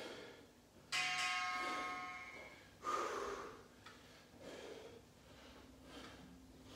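A single bell-like chime from the workout interval timer rings out about a second in and fades over a second or so, signalling the start of the round. Then come a man's forceful breaths, three of them, as he works through the curls.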